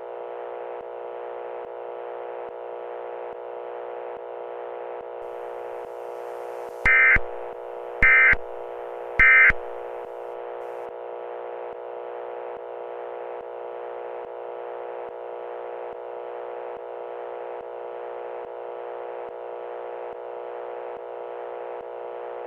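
Three short bursts of Emergency Alert System digital data tones, about a second apart: the SAME end-of-message signal that closes an alert. They sound over a steady electronic drone of several held tones.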